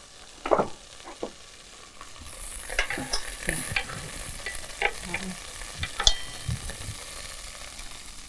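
Diced onions scraped off a wooden cutting board into a pot of hot olive oil, with knocks and scrapes of the board against the pot. Sizzling starts about two seconds in.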